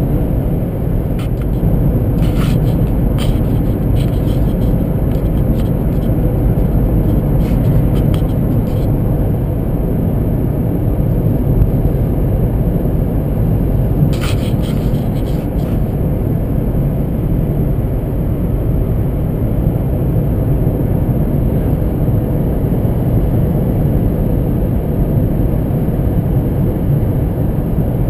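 Inside-cabin noise of a 2012 Honda Civic cruising at about 56 mph: a steady low rumble of tyres on the road with engine hum. A few faint clicks come early on and again about halfway.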